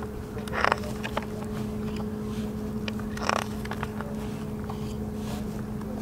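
A steady low hum runs under two short rustles of paper, just under a second in and again a little after three seconds, as a hand moves over the pages of a hardcover book.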